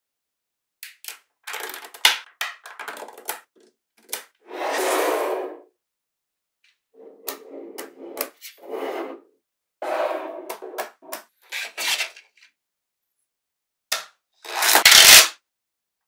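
Small magnetic balls clicking and snapping together as strips of them are joined and pressed into place, with short rattling runs of many balls rolling against each other. Scattered sharp clicks and several brief clattering bursts, the loudest a rattle near the end.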